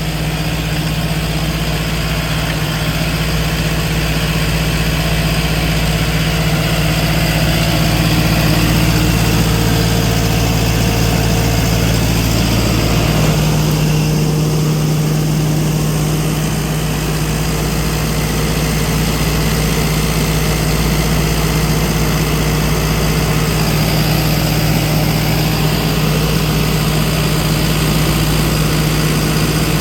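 Cummins diesel engine of a Rayco RG74T tracked stump grinder running steadily while the machine is driven and steered by remote control, its note shifting slightly about 13 seconds in.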